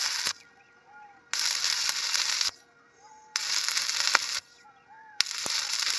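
Electric arc welding on iron, its arc crackling in short bursts of about a second each, broken off for about a second between. One burst ends just as the sound begins and three more follow.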